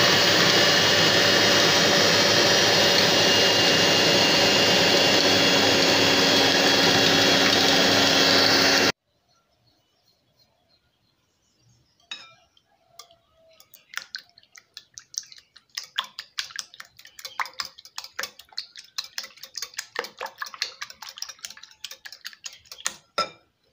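Electric hand mixer running steadily in a bowl of butter and sugar, cutting off suddenly about nine seconds in. After a short pause, a wire whisk beats eggs in a glass bowl with rapid clicking strokes that grow dense and continue until near the end.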